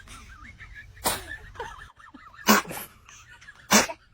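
Three short sneezes about a second and a quarter apart, with faint high wavering vocal sounds between them.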